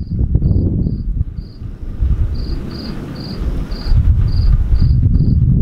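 A cricket chirping in short, evenly repeated high chirps, about two a second, over a loud low rumble that fades in the middle and swells again about four seconds in.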